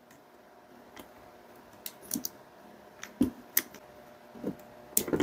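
Scattered small clicks and light knocks of plastic and metal drill parts being handled and pressed into place by hand in an opened Bosch PSB 550 RE drill housing, irregular and a second or so apart.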